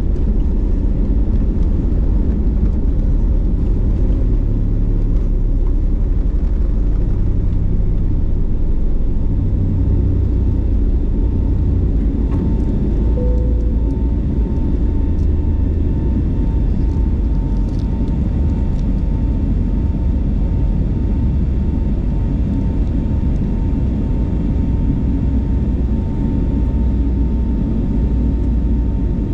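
Steady, loud, low rumble of an Airbus A321neo's engines and airflow heard from inside the passenger cabin. A faint steady tone comes in about twelve seconds in.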